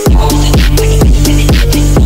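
Soundtrack music with a fast, steady drum beat of about four hits a second over a deep bass, and a short melody repeating between two notes.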